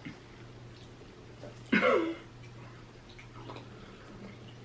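A single short burp about two seconds in, falling in pitch, with a few faint mouth clicks around it.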